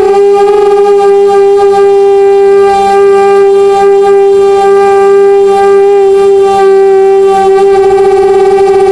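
Brushless motors of a 250-size FPV racing quadcopter whining at a steady, high pitch, holding nearly constant throttle with a slight wavering near the end.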